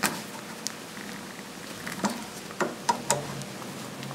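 Tin snips cutting into the thin, soft metal of an AR-15 handguard end cap: a run of short, sharp clicks and crunches, several coming close together in the second half.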